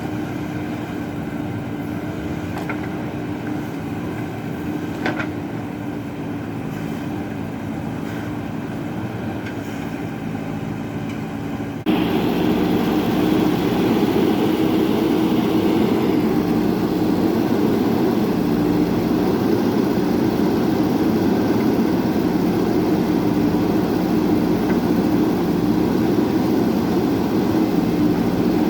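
Excavator's diesel engine running steadily with a level drone. About twelve seconds in it jumps abruptly louder and stays so, with a couple of faint knocks earlier on.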